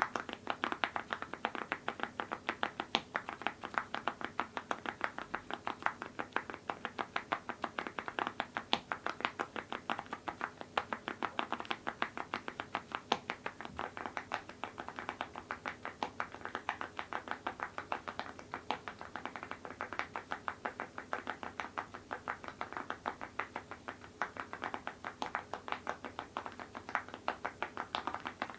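Continuous fast typing on a mechanical keyboard with Awekeys full-metal keycaps over linear switches: a steady stream of sharp keystroke clacks, several a second.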